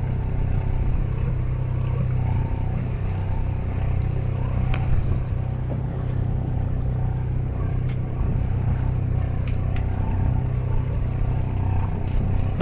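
Engine of a charter fishing boat running at a steady low hum, with a few light clicks and knocks on deck.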